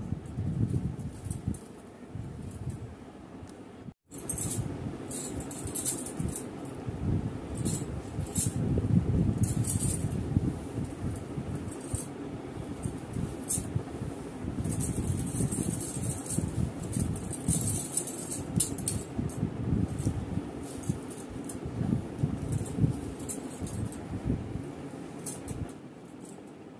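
Long hair being combed and handled close to the microphone: irregular rustling with light jingling of glass bangles on the wrists. The sound drops out briefly about four seconds in.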